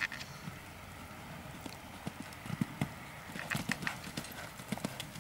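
Four-year-old Holsteiner mare cantering on sand footing: rhythmic, dull hoofbeats, louder and more distinct in the second half.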